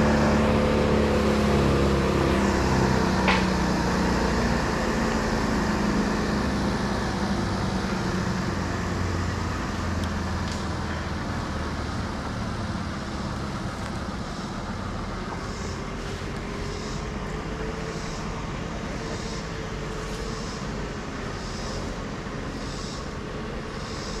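An engine running steadily, its pitch sagging a little, with a sharp click about three seconds in and a faint high sound repeating about once a second in the second half.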